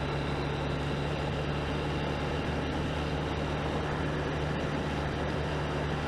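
Honda CB125F's single-cylinder four-stroke engine running steadily under way, with a constant low drone and a steady wash of wind and road noise.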